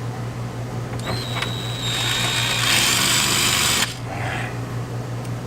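Power drill boring a shallow pilot hole for a screw, just deep enough to set it without going all the way through. The motor whine starts about a second in, grows louder as the bit cuts, and stops abruptly after about three seconds.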